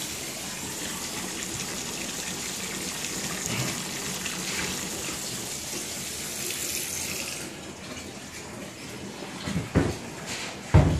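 Bathroom sink faucet running into the drain, which takes the water without backing up. The hiss of the water drops away about seven seconds in, and two dull thumps follow near the end.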